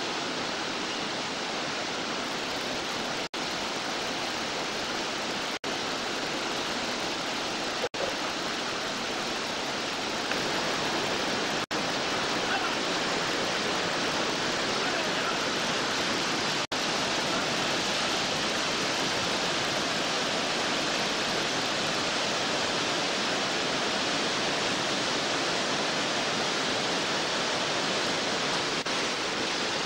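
Steady rush of whitewater rapids on a mountain river. The sound cuts out for an instant five times in the first half.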